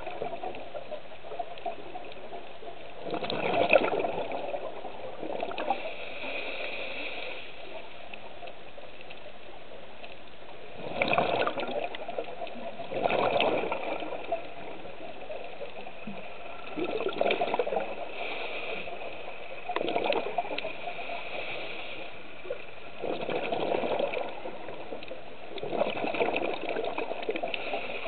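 A scuba diver breathing through a regulator underwater: a burst of exhaled bubbles every few seconds, about seven in all, with a softer, higher hiss between some of them.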